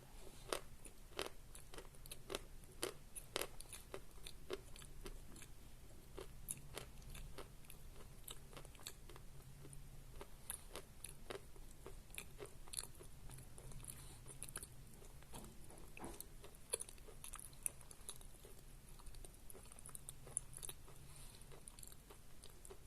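Close-up chewing of a piece of soft natural Khrapovsky chalk: a run of small clicks and soft crunches from the mouth, closely spaced at first and thinning out later. The chalk is soft and does not crunch much.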